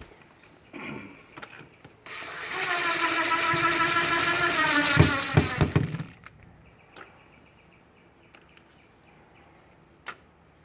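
A power drill driving a screw: the motor whines steadily for about four seconds, dropping in pitch near the end as it loads up, with a few sharp clicks as it finishes.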